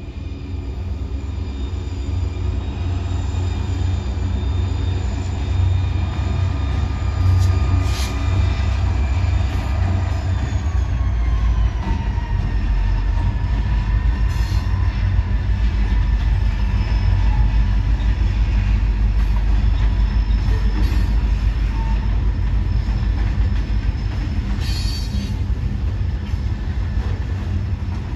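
Diesel freight train passing: the locomotive's engine tones drop in pitch as it goes by about eleven seconds in. Then a string of loaded gondola cars rolls past with a steady heavy low rumble and a couple of brief sharp wheel sounds.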